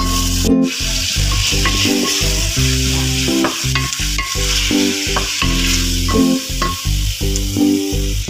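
Chicken pieces, onion and red bell pepper sizzling as they sauté in hot oil in a metal pot, stirred with a wooden spoon.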